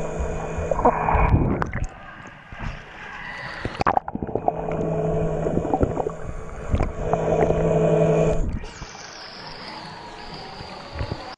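Sea-Doo underwater scooter's electric motor and propeller humming steadily, heard underwater through the camera housing. The hum drops away twice for a couple of seconds, with sharp knocks and water noise in the gaps.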